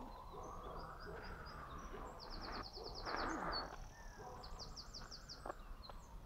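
Songbird singing: thin high notes and two fast trills of about ten notes each, one about two seconds in and one near five seconds. A brief louder rush of noise comes about three seconds in.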